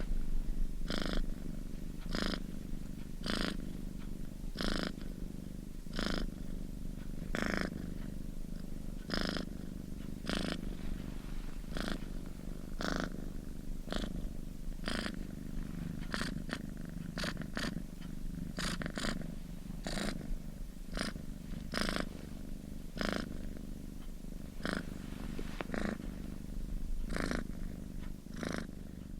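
Domestic cat purring close up: a steady low rumble that swells about once a second.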